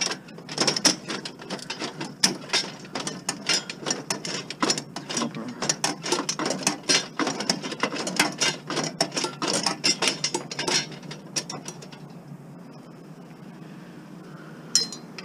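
Rapid, irregular metallic clicking and rattling as parts are worked loose by hand from the burner compartment of a discarded boiler, stopping about twelve seconds in. One more sharp click follows near the end.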